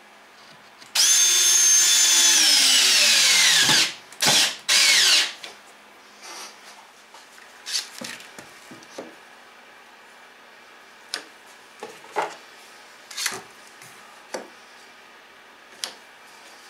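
Cordless drill driving a screw into a wooden spar: a loud motor whine for about three seconds, its pitch sliding down as the screw bites, then two short bursts to seat it. After that come scattered clicks and knocks as one-handed bar clamps are set along the spar.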